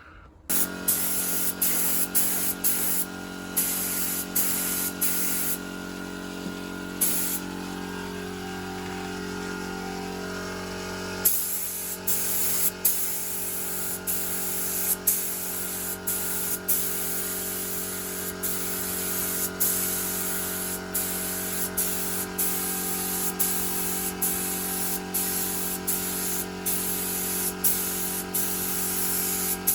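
Paint spray gun hissing in repeated passes, with a brief break between passes every second or two, over a steady motor hum.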